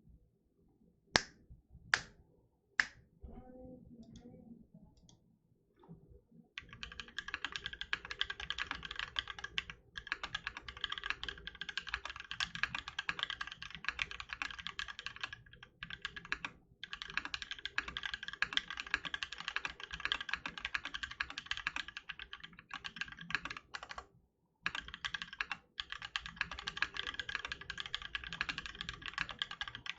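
Mechanical keyboard with an aluminium Tofu 60% case, brass plate, lubed YOK Holy Panda tactile switches and PBT keycaps, typed on quickly and continuously from about six seconds in, with a few short pauses. Three sharp clicks come first.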